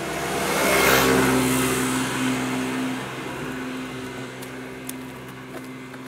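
A car passing on the road alongside. Its tyre and engine noise swells to a peak about a second in, then fades away over the next few seconds.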